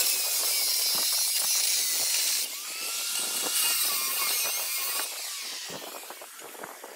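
Corded angle grinder grinding against the steel of an anvil, a loud hissing grind. It drops in level about two and a half seconds in and tapers off over the last couple of seconds as the grinder comes away and winds down.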